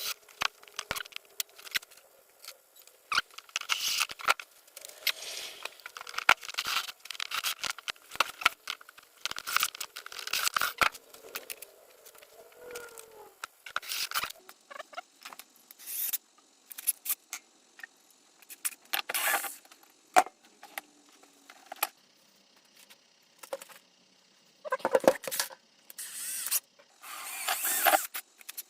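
Hand work with small metal hardware: washers and screws clinking and clicking at irregular intervals, with short scraping and rustling bursts, the longest near the end.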